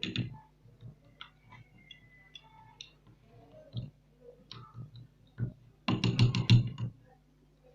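A spoon and dish clinking as honey is spooned into onion juice: scattered faint clicks, then a quick run of loud taps about six seconds in, over a low steady hum.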